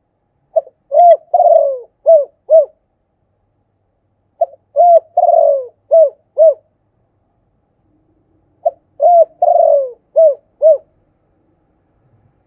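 Spotted dove cooing: three phrases a few seconds apart, each a short clipped note, a run of low coos with one longer falling coo in the middle, and two short coos to close.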